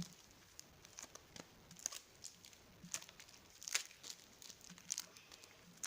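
Wrapped trading-card packets crinkling as they are handled and laid out, a run of scattered light crackles and clicks.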